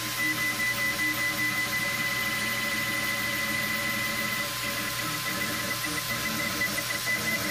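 Cetus3D desktop 3D printer running a print: its stepper motors whine at several steady pitches as the print head travels, over a steady low hum.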